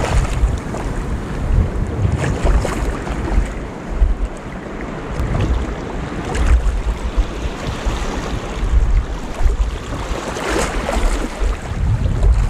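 Sea surf washing in over a rocky shore, swelling a few times, with wind buffeting the microphone as a heavy low rumble.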